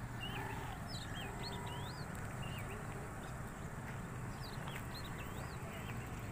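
Small birds chirping repeatedly, short rising-and-falling chirps scattered through, over a steady low rumble.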